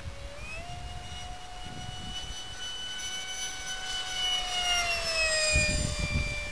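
Whine of a radio-controlled F-18 model jet's electric ducted fan (EDF-6904 unit driven by a Mega brushless motor). It rises in pitch about half a second in as the throttle comes up, holds, then drops in pitch as it grows loudest around five seconds in. Wind buffets the microphone underneath.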